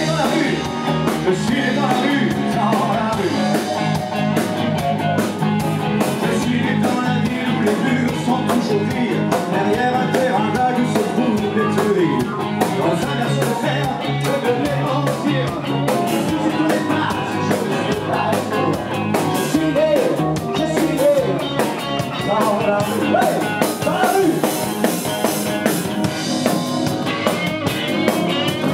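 Live rock-and-roll band playing: a man sings over electric guitar, bass and drum kit, with a wavering guitar line near the end.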